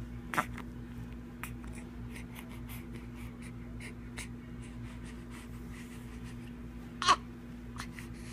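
A baby making two short, sharp breath sounds about seven seconds apart, the second with a quick falling pitch, over a steady low hum.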